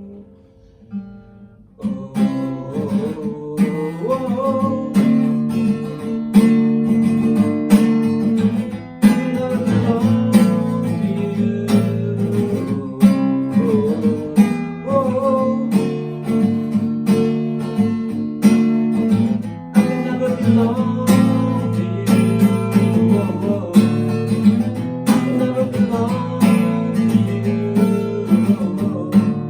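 Instrumental break of an acoustic song: acoustic guitars strummed and plucked in a steady rhythm, with a wavering melody line above the chords. The full band comes in about two seconds in.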